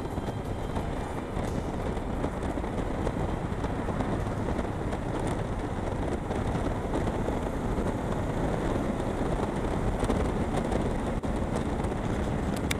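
Motorcycle on the move: a steady rush of wind over the microphone mixed with engine and road noise.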